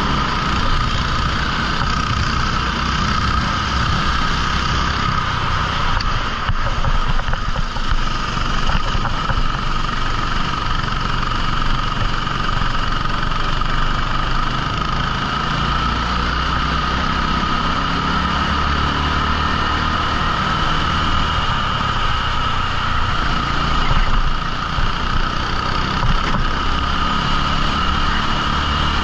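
14 hp rental kart engine running at a steady pitch, with no marked revving up or down.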